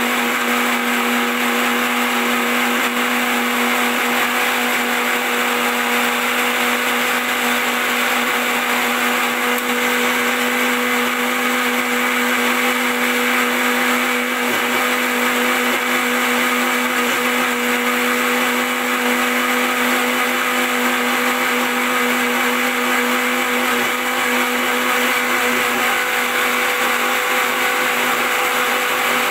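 Electric mixer grinder running steadily at full speed, its motor whining at one constant pitch as it blends chopped bitter gourd and tomato with water into juice.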